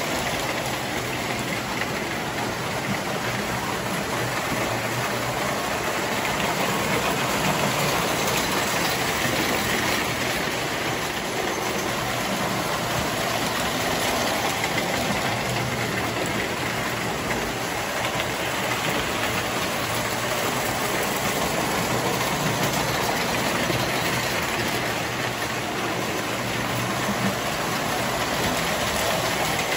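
Three-rail tinplate electric toy trains running around the track: a steady rolling rattle of metal wheels on the rails with the hum of their motors, rising and falling a little as the trains pass.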